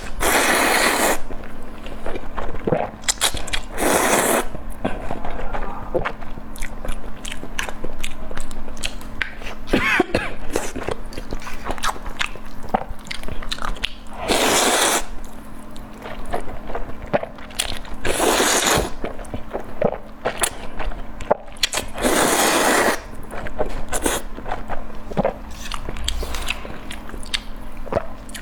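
Close-miked eating: steady chewing with many small wet mouth clicks, and about six louder crunching bites, each about a second long.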